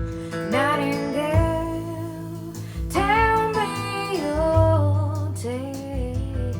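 Recorded song played through hi-fi loudspeakers: a female voice singing gliding notes over plucked guitar and a low bass line.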